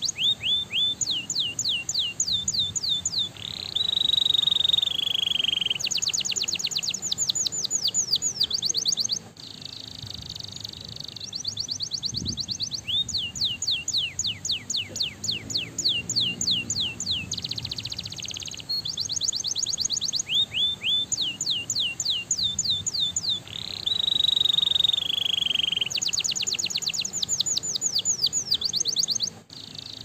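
Domestic canary singing: fast trills of rapid, evenly repeated down-slurred notes alternating with long held high whistles, in phrases of several seconds broken by short pauses.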